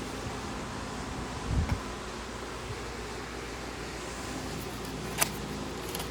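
Steady whir of the greenhouse furnace's fan running, with a short low thump about a second and a half in and a sharp click about five seconds in.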